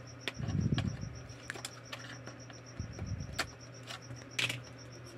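Scattered light clicks and low rubbing knocks of a plastic emergency-light housing and its cut wires being handled as the old battery is worked loose.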